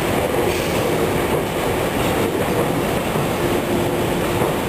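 A JR East 113-series electric train rolling slowly into the platform to couple, giving a steady rumble of wheels and running gear. A steady tone joins in about three and a half seconds in.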